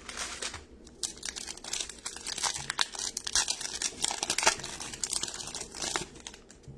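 A foil baseball card pack being torn open and crinkled by hand, a dense crackle of sharp rustles, loudest around four and a half seconds in, dying down just before the end.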